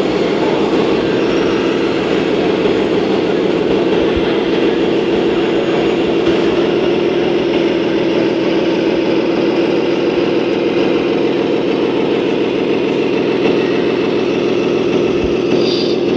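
Steady motor drone of a radio-controlled model vehicle running, with two brief low knocks.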